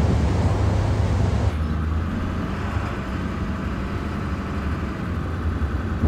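Wind buffeting the microphone for about a second and a half, then an abrupt cut to the steady low rumble of a diesel Ford F-350 pickup driving, engine and road noise.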